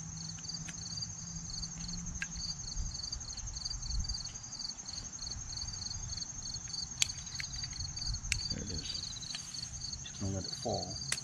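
Insects chirping: one steady high trill with a rapid pulsed chirping just below it, under a few sharp clicks.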